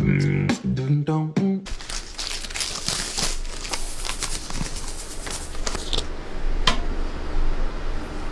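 Brief music with a beat, then white granules poured from a plastic packet onto a wooden tabletop: a steady crackling hiss of grains landing, with the packet crinkling and a few sharper clicks about six and seven seconds in.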